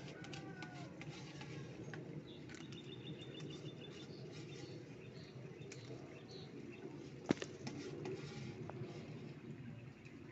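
Low, steady outdoor background with faint bird chirps, a short run of them a few seconds in; one sharp click stands out about seven seconds in.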